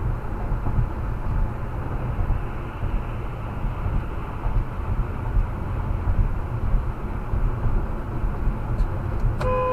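Steady low road and engine rumble of a moving car, then a car horn starts a long, steady blast near the end.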